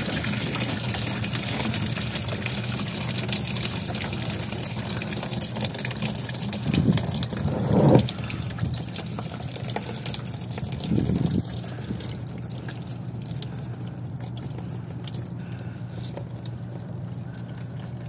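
Engine coolant pouring out of the engine block's open freeze plug hole and splashing down, a steady gush that eases toward a trickle as the block drains. There is a louder low rush about eight seconds in and another shorter one near eleven seconds.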